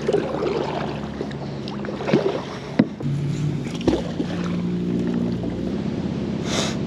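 Engine running steadily in the background, its pitch shifting about three seconds in and again near the end, with a few sharp knocks as the magnet and rope are handled and cast from the plastic kayak.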